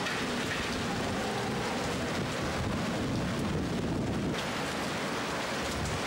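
Heavy typhoon rain falling steadily, with a low rumble in the middle.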